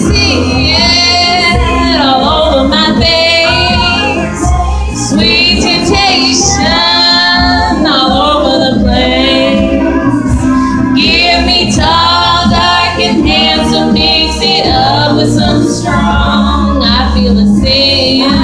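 A woman singing a country song over a loud karaoke backing track with a steady bass line, holding long notes with a wavering pitch.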